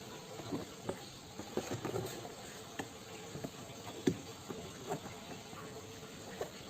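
Scattered light clicks and taps of things being handled, over a steady hiss; the sharpest tap comes about four seconds in.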